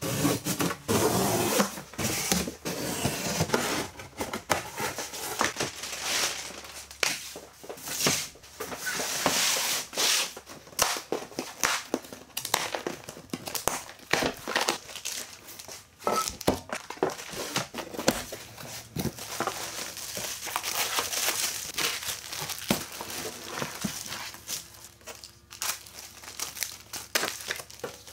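Plastic wrapping and cardboard packaging being handled during unpacking: steady crinkling and rustling of plastic sheeting, with tearing and many small knocks and scrapes from cardboard flaps.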